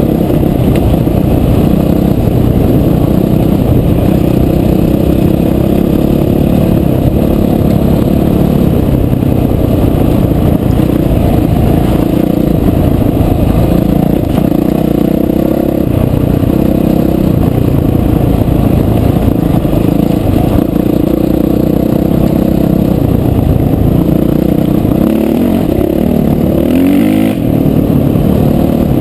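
Off-road motorcycle engine running steadily as the bike rides a rough dirt trail, revving up briefly near the end.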